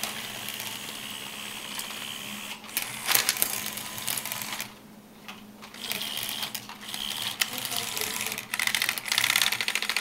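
Remote-control toy tank's small electric motor and gears whirring as it drives, with a short pause about five seconds in and a faster, louder rattling near the end. Wooden craft sticks clack a few times as it shoves through them.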